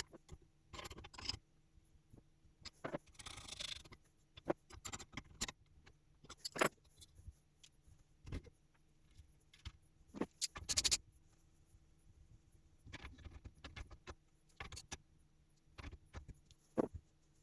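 Irregular metallic clinks, knocks and short scrapes of small metal parts and hand tools being handled.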